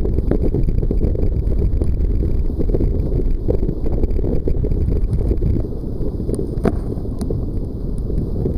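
Wind buffeting the microphone over rushing water and spray as a Hobie 16 catamaran sails fast. Near the end a few sharp ticks.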